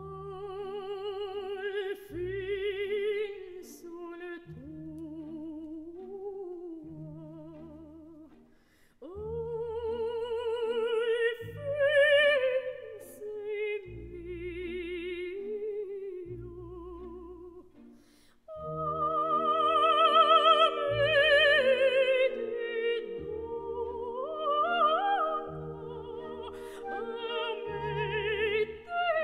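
Operatic soprano singing a bel canto aria with wavering vibrato over soft orchestral chords. She sings phrases broken by two short pauses, then holds a long high note about two-thirds in and follows it with rising runs.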